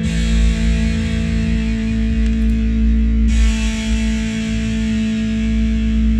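Electric guitar played through distortion, several notes held and ringing together steadily over a heavy low end, with a brighter, hissier edge coming in about three seconds in.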